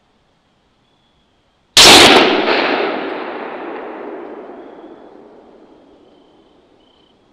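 A single rifle shot about two seconds in, its report rolling away in a long echo that fades over about five seconds.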